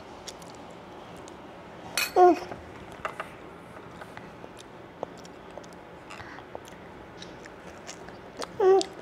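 A toddler eating finger food, with faint clicks and mouth sounds of chewing. Twice, about two seconds in and again near the end, a short high voice sound falls in pitch, the loudest sounds here.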